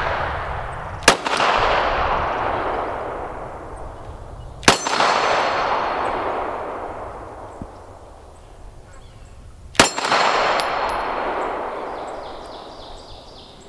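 Three 9mm pistol shots from a PSA Dagger, the first two about three and a half seconds apart and the third about five seconds later, each followed by a long echo dying away over several seconds. The shots are light handloads, not a hot load.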